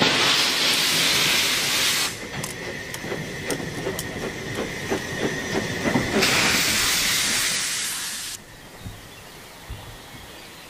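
Saxon IV K narrow-gauge steam locomotive blowing off steam in two loud hisses from its open cylinder drain cocks while moving slowly during shunting, with irregular knocks and clanks between the hisses. The sound drops away abruptly about two-thirds of the way through.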